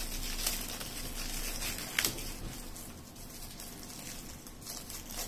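Thin plastic wrapping crinkling and rustling as it is peeled off a charging brick by hand, with a few sharp crackles, the loudest about two seconds in.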